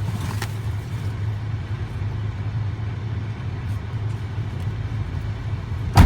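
Steady low hum of a car, with one sharp knock near the end.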